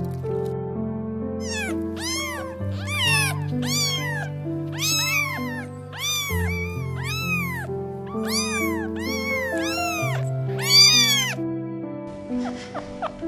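Domestic cat meowing many times in quick succession, each short meow rising then falling in pitch, starting about a second and a half in; the loudest meows come near the end. Background music with slow, steady bass notes plays underneath.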